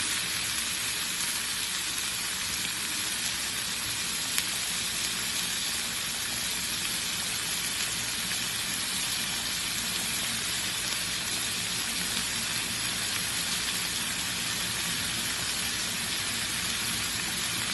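Sautéed canned tuna, tomatoes and onion sizzling steadily in oil in a pan, with one light click about four seconds in.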